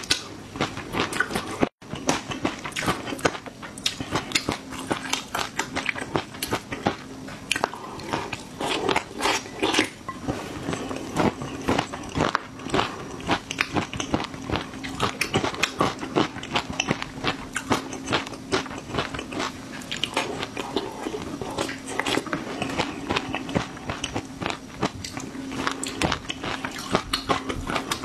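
Close-miked chewing of crunchy food: a dense run of quick crackling clicks from the mouth, with a steady low hum underneath.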